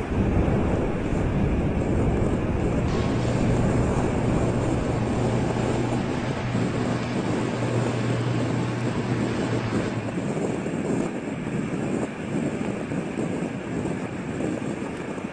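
Steady low rumbling drone, with a low hum that comes in about three seconds in and fades out about ten seconds in.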